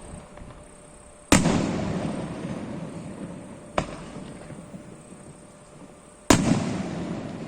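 Aerial fireworks shells bursting: two loud booms about five seconds apart, each trailing off in a long rumbling echo over a couple of seconds, with a smaller sharp crack between them.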